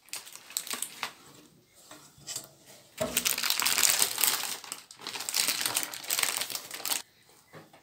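Baking parchment crinkling and rustling as it is handled and peeled from a freshly baked cake layer, in scattered bits at first and then a dense continuous crackle for about four seconds that stops abruptly near the end.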